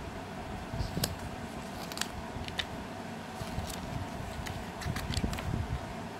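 Pages of a paper instruction booklet being flipped and handled: a scattering of short, crisp paper rustles and flicks over a steady background hum.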